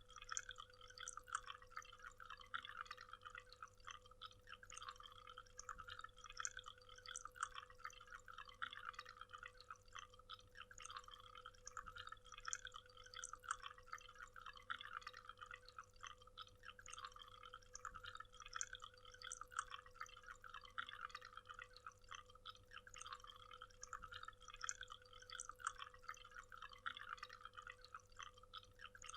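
Waterfall, faint and steady: water splashing and trickling in a continuous patter, with a faint steady hum underneath.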